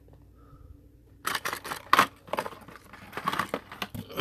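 Fishing-lure packaging being handled and opened: a run of sharp clicks and crackles of hard plastic that starts about a second in, loudest near the middle.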